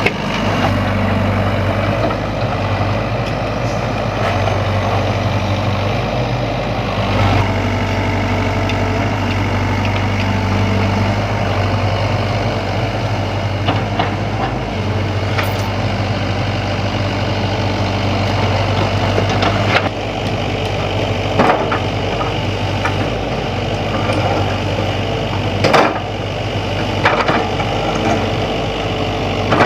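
Sany hydraulic excavator's diesel engine running steadily, its note shifting a few times with working load, with several sharp knocks in the second half.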